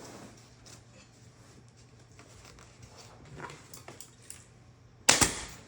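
Faint scattered taps and rustles of handling, then one sharp, loud bang about five seconds in.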